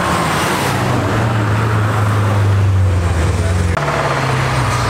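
Car engines running steadily at low revs as cars pull out past the crowd, with a strong low hum. About four seconds in the sound cuts abruptly to a different car's slightly higher engine note.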